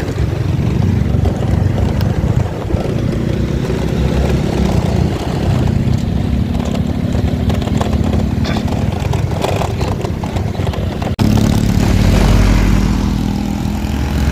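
A vehicle engine running steadily on the move, with a low hum. A little after eleven seconds the sound cuts abruptly to a louder, deeper rumble.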